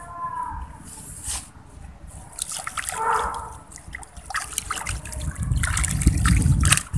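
Mesh keepnet being hauled up out of a pond with the catch of tilapia inside: water splashing and trickling through the net, the splashing getting louder over the last two seconds.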